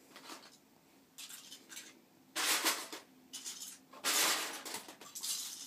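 Loose plastic LEGO bricks clattering as a hand rummages through a pile of pieces, in several bursts, the loudest a little over two seconds in and about four seconds in.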